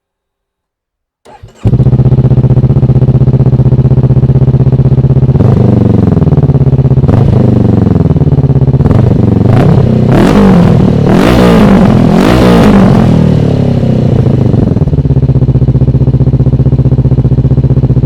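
Honda CB500X parallel-twin engine through a Termignoni slip-on exhaust with the baffle (dB killer) removed. It is started just over a second in and idles loudly, is blipped up and down through a series of revs, then settles back to a steady idle.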